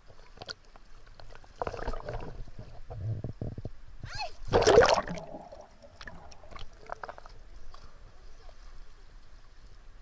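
Sea water splashing and sloshing around a camera held at the surface, in irregular bursts, with the loudest splash about halfway through as the camera goes under; after that, quieter muffled gurgling.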